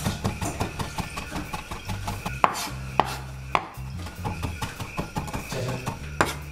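Knife dicing fresh ginger in a quick, steady run of chopping taps, with a few harder knocks about halfway through and again near the end.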